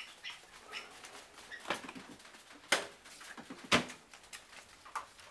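Footsteps on a paved floor: a few sharp taps about a second apart, the last one the loudest.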